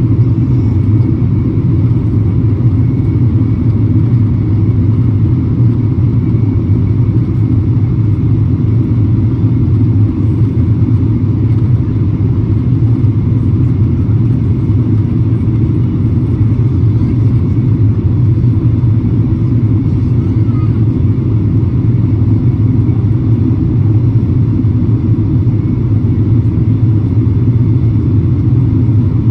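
Steady low roar in the cabin of a jet airliner in flight: engine and airflow noise heard through the fuselage, unchanging throughout, with a faint steady hum above it.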